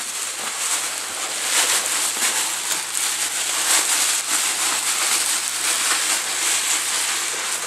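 Plastic bubble wrap being pulled off and handled, a continuous crinkling rustle.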